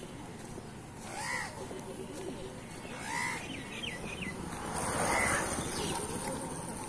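Crows cawing: three single caws about two seconds apart, with a few short bird chirps between the second and third.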